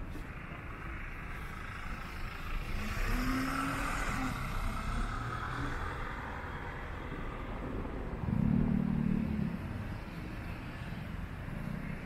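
City road traffic: a car passes, its tyre and engine noise swelling and fading about a third of the way in, over a steady hum of traffic. A brief low pitched sound comes later.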